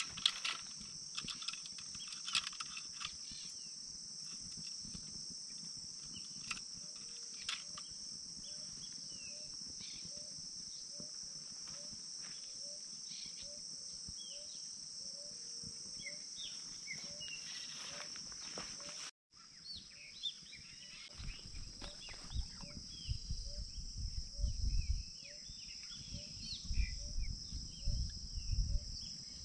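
Steady high-pitched insect chorus with birds chirping over it, and a short lower note repeating about once a second. In the last third, low rumbling thumps come and go and are the loudest sound.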